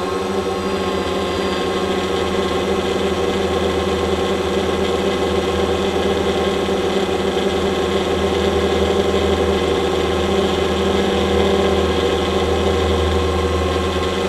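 Quadcopter drone's motors and propellers hovering, a steady multi-toned hum that holds its pitch throughout.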